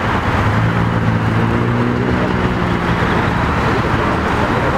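Engine of a LiAZ-677M bus, a V8 petrol, running under way, heard from inside the cabin over road noise. Its low drone stands out most from about half a second in for some three seconds.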